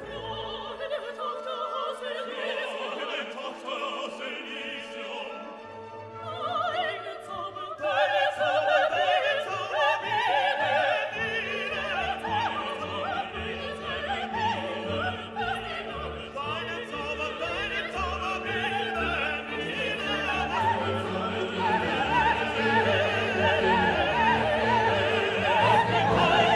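Orchestral classical music with operatic singing, growing fuller and louder about eight seconds in.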